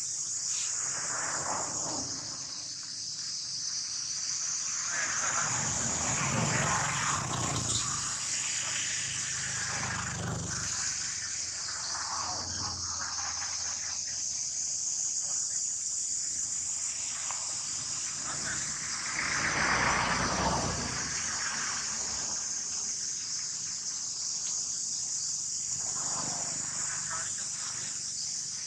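Steady high-pitched chorus of insects, unbroken throughout. Irregular louder rushes of noise come and go over it, the strongest about twenty seconds in.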